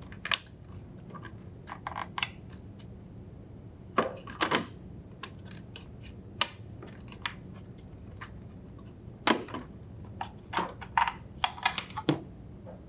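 Plastic retaining clips on a refrigerator's main control board mount clicking and snapping as they are pushed back and the circuit board is worked free: scattered sharp clicks and knocks, some in quick clusters of two or three.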